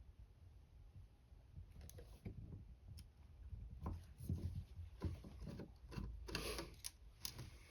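Faint hand-work noises: scattered light clicks and knocks, with a stretch of scraping and rustling about six seconds in, as screws are handled and driven with a hand screwdriver into a camper window frame.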